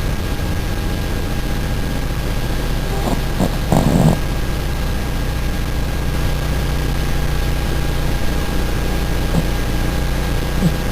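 A sleeping dog snoring, with a few louder breaths about three to four seconds in, over a steady low hum.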